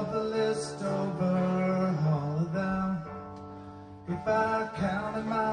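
Live rock band playing, led by guitar with a singing voice. The music drops quieter for about a second past the middle, then comes back in at full level.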